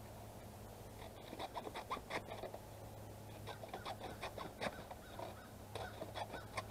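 Shears cutting cardboard into strips: a run of short, irregular crunching snips, starting about a second in.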